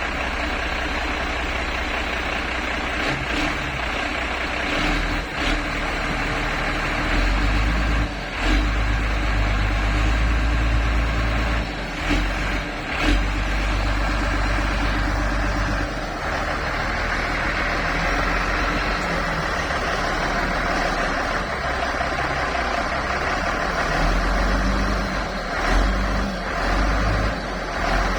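Motor grader's diesel engine working hard under load, its low rumble swelling and easing in surges, with a few sharp knocks. The grader is straining to drive itself out of soft roadside mud it has sunk into.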